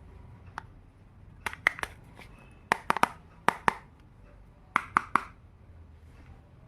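Sharp clicks and taps of small plastic miniature toy kitchen pieces being handled, in quick groups of two or three, about four groups in all.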